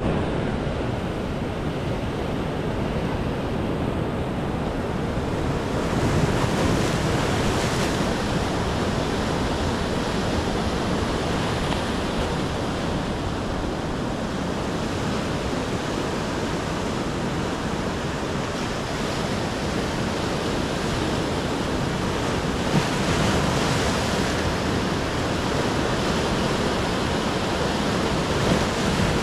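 Sea surf breaking and washing over a rocky shore: a steady rush of waves that swells louder as bigger waves come in, about six seconds in and again a little past twenty seconds.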